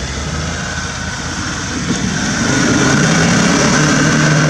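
Land Rover Defender's engine pulling steadily as the 4x4 climbs a rough off-road slope, getting louder about two seconds in as it draws near.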